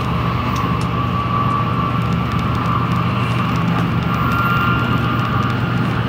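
Running noise heard inside an N700-series Shinkansen motor car travelling at speed through a tunnel: a steady low hum and rushing noise with a faint whine above it.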